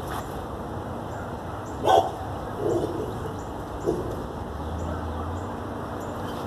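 Dog barking a few times, short single barks with the loudest about two seconds in.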